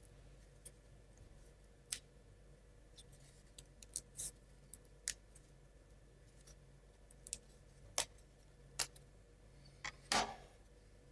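Scattered light clicks and taps of small laser-cut plywood model parts being handled, about a dozen at irregular intervals, the loudest near the end.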